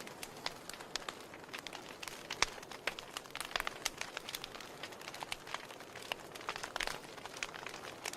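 Wood fire crackling in a fireplace: burning logs giving off irregular sharp pops and snaps over a steady soft hiss.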